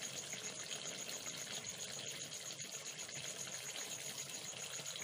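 Korma gravy simmering in a pan: a soft, steady hiss.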